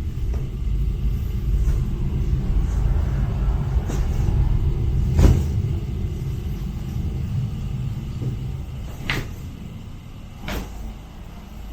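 A steady low rumble with a few sharp clicks over it, the loudest click about five seconds in.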